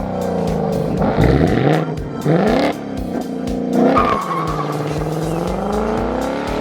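Exhaust of a 2024 Ford Mustang GT's 5.0 L Coyote V8 revving and pulling hard, its pitch rising and falling several times. Tires squeal briefly about four seconds in, with music underneath.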